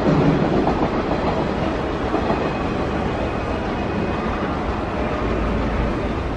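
Electric commuter train running on the track: a steady rumble of wheels on rail, a little louder at the start and then even.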